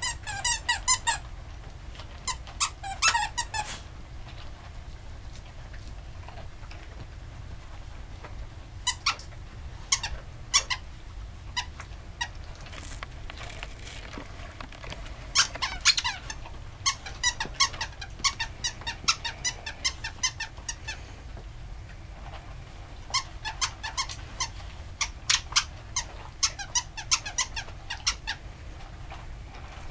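Plush duck squeaky toy squeaking as a dog chews it, in runs of rapid squeaks separated by pauses of several seconds.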